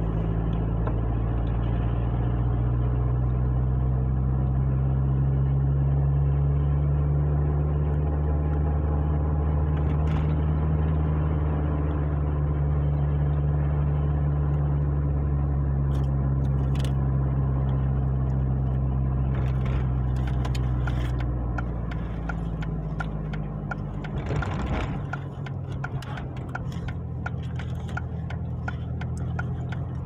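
Car engine and road noise heard from inside the cabin while driving, a steady low hum that eases off about two-thirds of the way through. From about two-thirds in, a steady regular ticking, typical of the turn-signal indicator, runs alongside as the car slows to turn.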